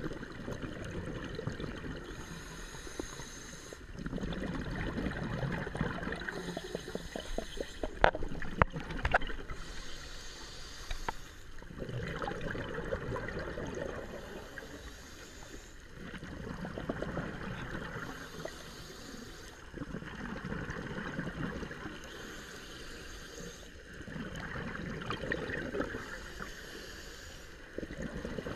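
Scuba diver breathing through a regulator, recorded underwater: a quieter hiss of inhaling alternates with a louder burst of bubbling exhaust, about every four seconds. A few sharp clicks stand out about a third of the way in.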